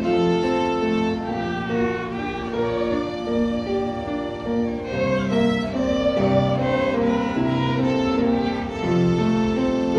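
Violin performance by elementary-school students from an after-school class, playing a melody in a run of held notes that change every half second or so.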